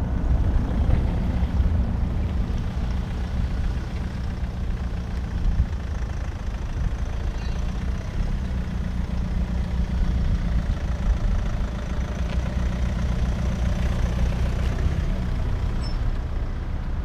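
A heavy engine idling steadily: a low rumble with a steady hum on top.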